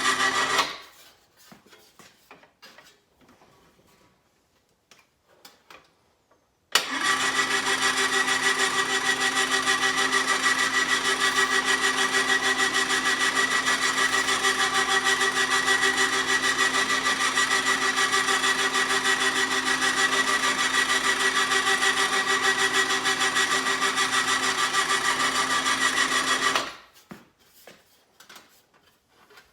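A motor-driven machine running with a steady, even hum. It stops just under a second in, leaving a few light clicks and knocks. About seven seconds in it starts again suddenly, runs steadily, and stops near the end.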